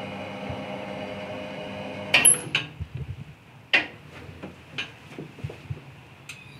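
Wheel balancing machine's steady hum as it spins a 19-inch wheel and tyre, fading out over the first two seconds, followed by a few sharp metallic clicks and knocks, the loudest about two seconds in.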